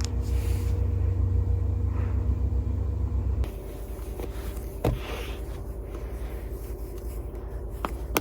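A steady low rumble with a hum, which drops to a quieter, lighter hum about three and a half seconds in; a few faint clicks come later.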